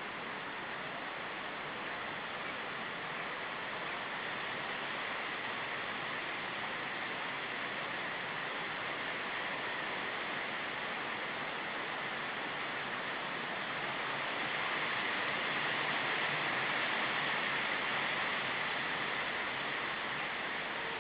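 Steady wind noise hissing on an outdoor nest-camera microphone, swelling with a stronger gust about two-thirds of the way in and easing slightly near the end.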